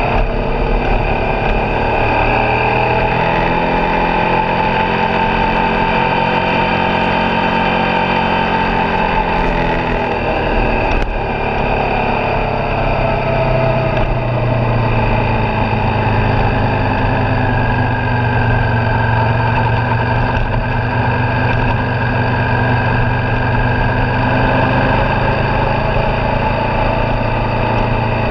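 Suzuki V-Strom 650XT's 645 cc V-twin engine running under way in third gear at around 50 km/h, its note rising and falling with the throttle. The engine is new and still being run in.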